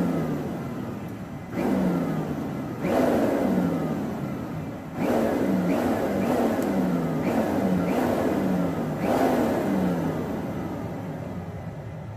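Air being driven into a forge fire in repeated surges, each starting abruptly and fading away, with a falling whine repeating inside each surge.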